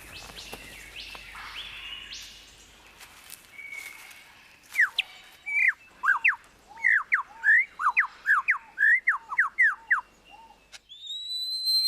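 Superb lyrebird singing: a loud run of quick, sharply sweeping whistled notes, about two a second, starting about four seconds in. Softer forest bird calls come before it, and a rising whistle follows near the end.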